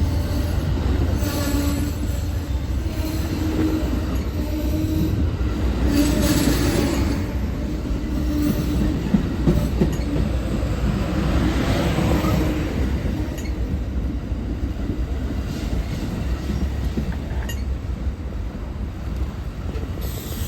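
Amtrak Southwest Chief train led by P42DC diesel locomotives rolling past, with a steady low diesel rumble, intermittent wheel squeal and the clack of wheels over rail joints.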